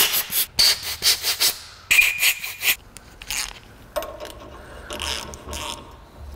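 Short, repeated blasts of compressed air from a blow gun, clearing debris out of a freshly chased bolt hole. After about three seconds come fainter, slower rasping strokes of a hand file across a steel bolt's threads.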